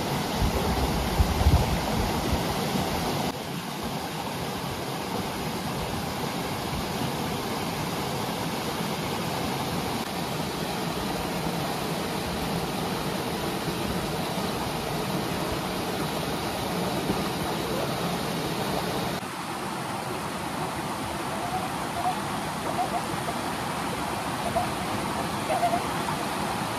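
Mountain stream rushing steadily over rocks and small cascades, with a little extra low rumble in the first two seconds.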